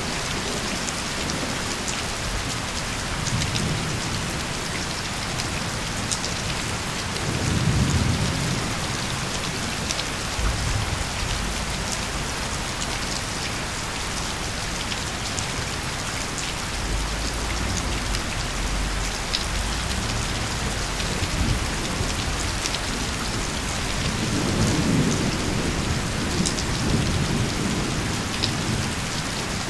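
Steady heavy rain falling on surfaces, with distant thunder rumbling low several times: a swell about a quarter of the way in, a long low rumble past the middle, and another swell near the end.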